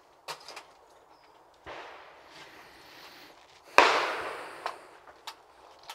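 Metallic clicks of a hammer shotgun being opened and reloaded, with a loud shotgun shot going off close by about four seconds in, its report dying away slowly. A fainter bang comes before it, under two seconds in.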